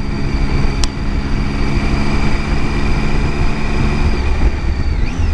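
Motorcycle engine running steadily while cruising, with wind rumbling on the microphone. There is a single sharp click about a second in, and the engine note drops away after about four seconds.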